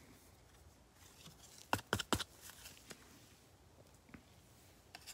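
Soft handling noises of plastic card sleeves, toploaders and card packs: a few short clicks and rustles, loudest around two seconds in, with a couple of fainter ticks later.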